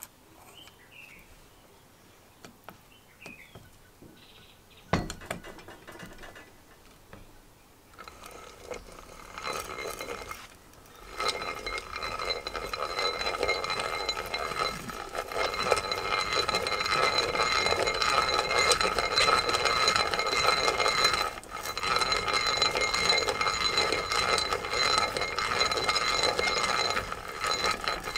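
Faint clicks and a sharp knock about five seconds in as the bit is fitted, then a restored Leytool egg-beater hand drill is cranked, its gears whirring steadily with a few high ringing tones as the twist bit bores into wood. The cranking starts about ten seconds in and pauses briefly about twenty-one seconds in.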